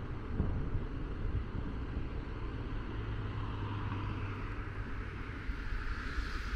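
Wind buffeting the microphone over street traffic, with a steady low engine hum from a passing vehicle about three seconds in that lasts under two seconds.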